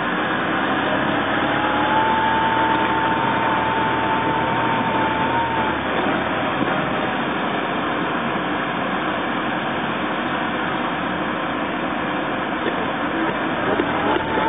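Mercedes CLK 230 Kompressor's supercharged four-cylinder engine running, heard from inside the footwell. A whine rises about a second in, holds steady, then fades away around the middle. The car has a fuel problem that is being diagnosed.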